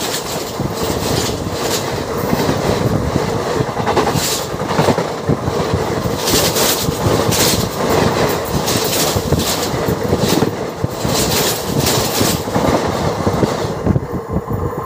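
A passenger train running directly overhead, heard from between the rails: a loud, dense rumble and clatter with repeated bangs as the wheel sets pass, over a steady hum. The clatter eases near the end as the last coach clears.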